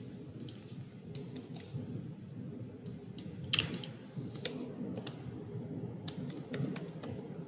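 Typing on a computer keyboard: irregular key clicks, some in short quick runs, over a steady low hum.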